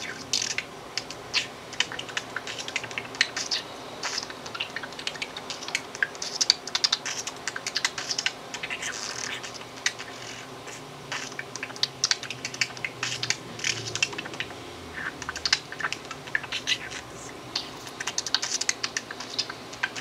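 Budgerigar making rapid, irregular clicks and pops with a few brief chirps: beatbox-like chatter the bird has picked up from human beatboxers.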